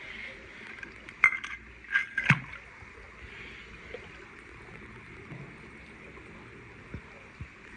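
A small die-cast toy car dropped into a swimming pool: a few short splashes and plops a second or two in, then only faint background noise.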